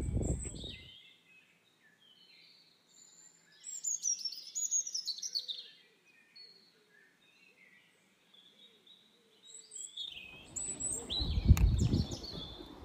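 Songbirds calling with high chirps, including a quick run of falling notes about four seconds in. Wind buffets the microphone with a low rumble in the first second and again from about ten seconds in, loudest near the end.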